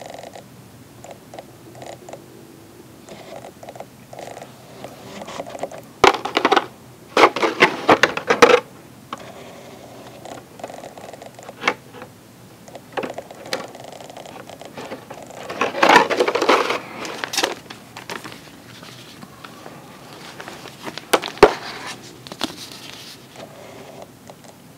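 Hands handling a toy figure's clear plastic blister packaging: two bursts of crinkling and crackling, the first about six seconds in and the second about sixteen seconds in, with scattered clicks and taps between them.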